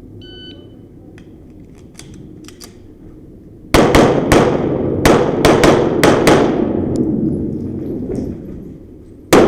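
A string of rapid pistol shots, each with a ringing echo. The shots start suddenly after about four seconds of faint clicking, fall quiet briefly, and start again near the end.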